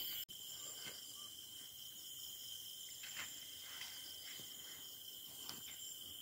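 Night insects trilling steadily and faintly, with a few soft knocks scattered through.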